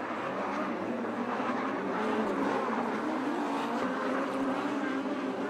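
Engines of wingless open-wheel race cars racing on a dirt oval, several running at once, their pitch rising and falling as they lift and accelerate through the turns.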